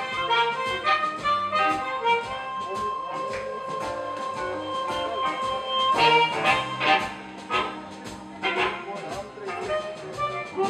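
Live blues band: amplified blues harmonica, cupped against a handheld microphone, playing over electric guitar and drums. It holds one long note for about four seconds, then breaks into shorter phrases over sharp drum hits.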